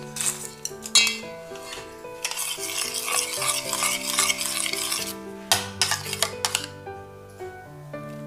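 Metal spoon stirring and scraping through thickened honey sauce in a stainless steel saucepan, with sharp clinks of utensils against the steel pot and bowl about a second in and again between five and seven seconds. Background music with held notes plays throughout.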